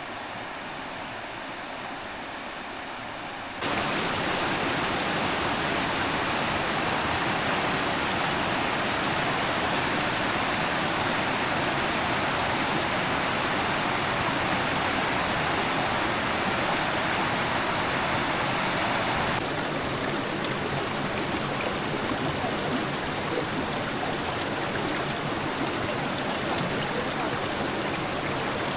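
Water from a karst spring rushing over mossy boulders in a mountain stream: a steady rush that gets clearly louder a few seconds in and eases a little about two-thirds of the way through.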